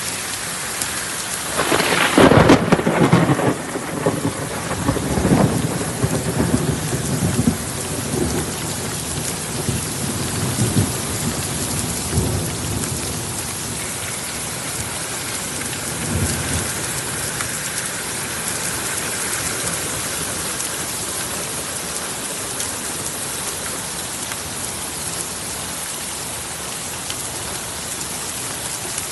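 Heavy rain falling steadily, with a loud clap of thunder about two seconds in that rumbles on in fainter rolls for roughly the next ten seconds.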